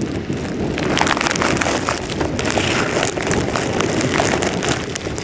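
Wind buffeting the camera microphone: a steady rushing rumble with scattered crackles and taps.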